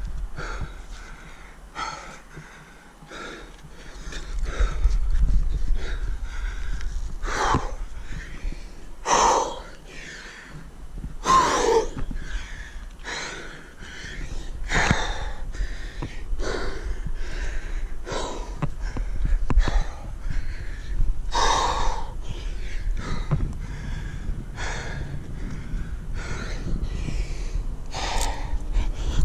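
A climber breathing hard under exertion while climbing: sharp, forceful breaths out, roughly one every one to two seconds, some much louder than others.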